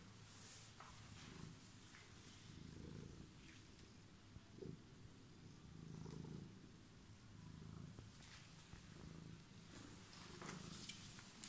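Calico cat purring right at the microphone, a faint low rumble that swells and eases every couple of seconds with its breathing. A few brief scratchy rustles come through, the loudest near the end.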